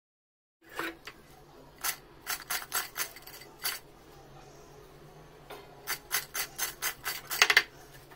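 Crisp deep-fried spinach pakoras crackling and rustling as fingers pick through them in a glass bowl: short sharp crunchy crackles, a scattered group starting about a second in and a denser, louder run near the end.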